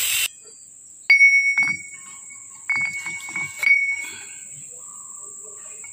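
Steel gear parts clinking together, each knock leaving a bell-like ring: a sharp clink about a second in, then a quick run of lighter knocks a couple of seconds later, as the machined spiral bevel pinion is fitted against the crown gear.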